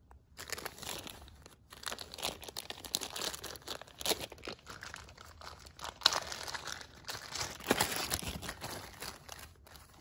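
Thin plastic zip bag crinkling and rustling as a battery pack is handled and pulled out of it: irregular crackles, with a few sharper ones.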